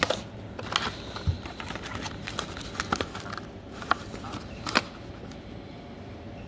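Hands handling a plastic correction tape dispenser and its torn card-and-plastic blister packaging: irregular clicks, taps and crinkles, the sharpest near the start and around four and five seconds in. It goes quieter near the end.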